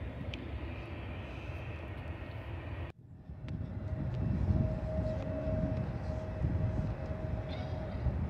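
Private jet's engines running at a distance, a steady whine over a low rumble. The sound drops out abruptly about three seconds in, then the whine comes back clearer and holds steady.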